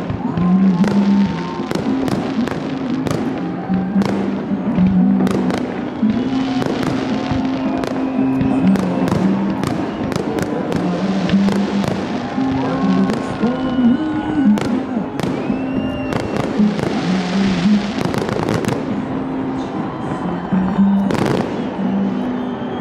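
Fireworks salute with aerial shells bursting in rapid, repeated bangs and crackles, some with short gliding whistles. Music with long held low notes plays underneath.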